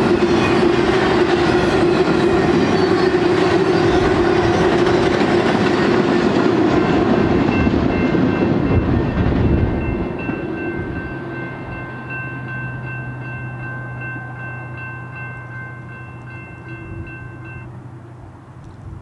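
Double-stack intermodal freight cars rolling and clattering past on the rails, fading about ten seconds in as the end of the train goes by. A grade-crossing warning bell dings steadily in the distance and stops near the end.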